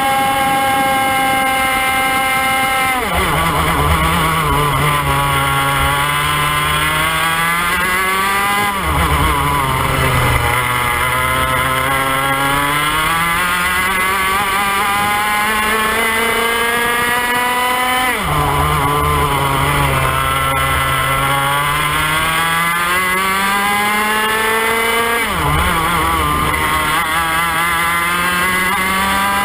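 IAME X30 125cc two-stroke kart engine at racing speed, heard from on board the kart. It starts at high steady revs, then drops sharply four times as the driver lifts for corners. Each time the pitch climbs steadily back up as the kart accelerates out.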